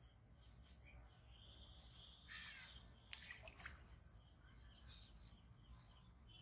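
A crow cawing faintly in the background. About three seconds in there is a brief sharp splash, followed by a few smaller ones, as a hooked catfish thrashes at the water's surface.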